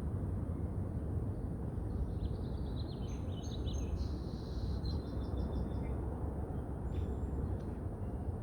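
Steady low rumble of wind and distant city traffic. A songbird gives a few quick high chirps about two seconds in, then a short fast trill.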